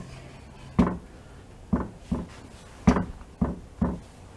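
Six short, sharp clicks and knocks from a sliding compound mitre saw's safety catch and head being worked by hand.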